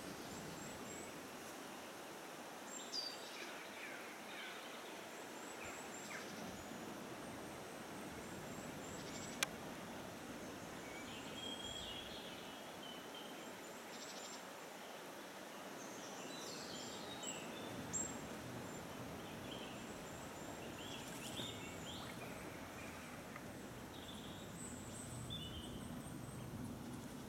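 Faint steady outdoor background noise with scattered short, high bird chirps and peeps, and one sharp click about nine and a half seconds in.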